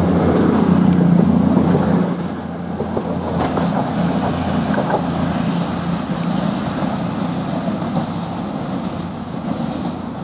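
CrossCountry Class 220 Voyager diesel-electric multiple unit pulling away, its underfloor diesel engines running loud for about the first two seconds. The sound then fades gradually as the train moves off down the line.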